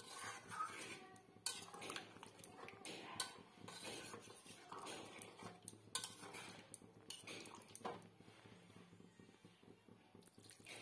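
Metal spatula scraping and clinking against an aluminium kadai while stirring a thick curry, in faint, irregular strokes.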